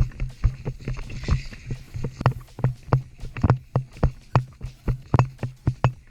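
A player's footsteps jogging across the ground, heard close up from a body-worn camera: even thuds, about three steps a second.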